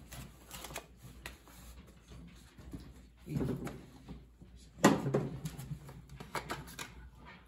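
Clicks, rattles and knocks of the black plastic air filter cover being worked loose and lifted off a lawn tractor's single-cylinder engine, with two louder thumps, the louder about five seconds in.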